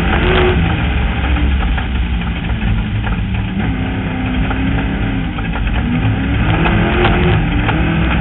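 Off-road vehicle's engine running under way on a rough desert dirt track. The engine pitch falls off in the middle and climbs again toward the end, over clattering knocks from the rough ground.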